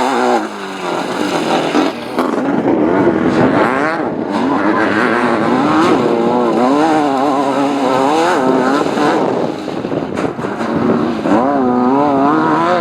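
Off-road race car engine revving hard, its pitch climbing and dropping again and again as the throttle opens and closes, with a rushing noise underneath.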